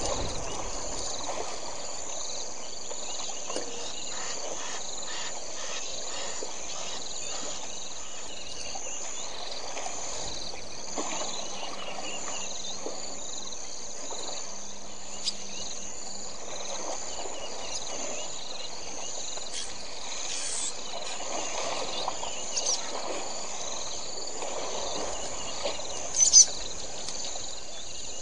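Bush ambience of steady, pulsing insect chirping, with the wet sloshing of young elephants wrestling and rolling in mud. A brief high chirp cuts through twice, the louder one near the end.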